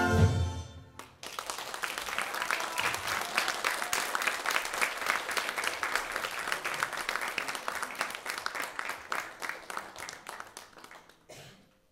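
An orchestra's final brass-heavy chord cuts off at the very start and rings briefly in the hall, then the audience applauds for about ten seconds, the clapping thinning and dying away near the end.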